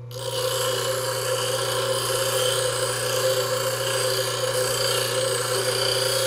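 Bench grinder wheel grinding into a steel screwdriver shaft, a steady abrasive rasp of wheel on steel over the grinder motor's constant hum; the grinding starts right at the beginning. The wheel is cutting a groove most of the way through the shaft so it can be snapped off.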